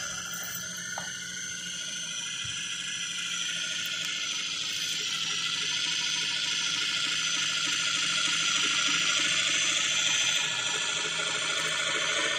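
Handmade RC truck's motor and gearbox whining steadily as it crawls along in first gear, a high whine made of several steady tones.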